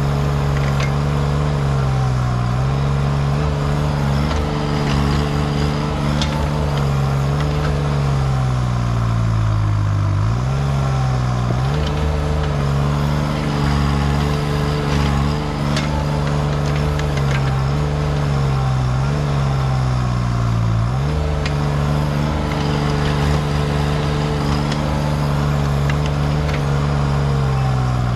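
Diesel mini excavator of about 6,000 lb running while digging a trench, its engine note sagging under hydraulic load every few seconds and then recovering, with the two deepest dips about a third and three-quarters of the way through.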